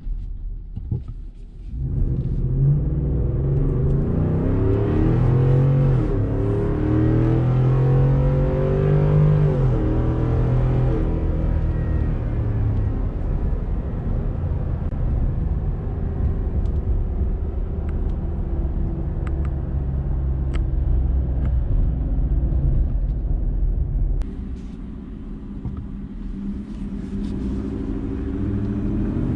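Ford F-150's 5.0 V8 through a Corsa Extreme exhaust (Corsa Sport with resonator delete), heard from inside the cab with the windows up. It accelerates hard, the pitch climbing and dropping back twice at upshifts in the first ten seconds, then holds a steady drone, eases off about four-fifths of the way through and builds again near the end.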